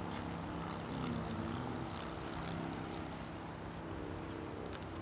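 Steady drone of an engine or machine running, with a few faint clicks.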